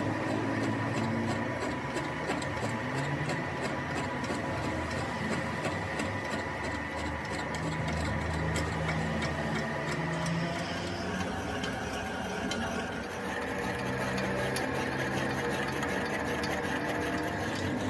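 Metal lathe running with a steady machine hum and a fast, even ticking, while the car's spindle is turned.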